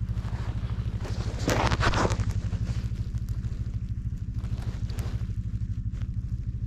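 An engine idling steadily with an even low pulsing, and a short rustling scrape about a second and a half in.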